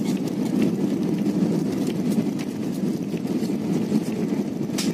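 Jet airliner cabin noise while the aircraft rolls along the runway: a steady low rush of engines and wheels heard from inside, with a few faint clicks and a sharper one near the end.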